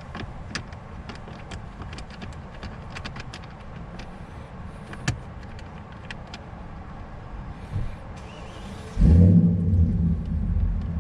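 Light clicks and taps from the phone mount's arm and holder being handled. About nine seconds in, a car engine starts and keeps running steadily.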